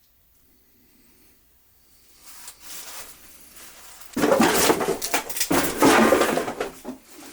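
Clutter on the floor rustling and crunching underfoot as someone wades through it, quiet at first and then loud in two stretches over the second half.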